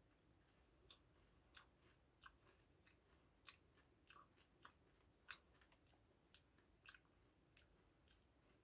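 Faint, irregular crunching of hand-cooked potato crisps being chewed, about one to two small crunches a second.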